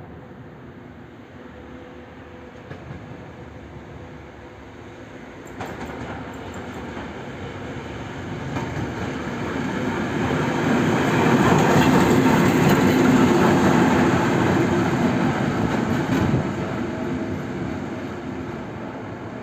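Soviet-built ChME3-type (PKP class S200) diesel shunting locomotive passing slowly with its diesel engine running. It grows louder to a peak about halfway through, then fades as it moves away.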